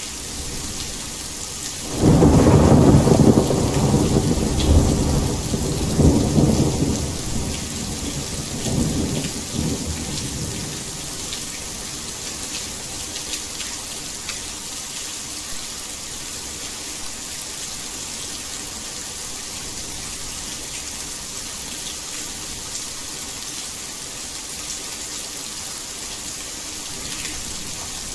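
Heavy rain falling as a steady hiss. About two seconds in, a loud clap of thunder breaks into a deep rumble that rolls on with a couple of further swells and fades away after about eight seconds.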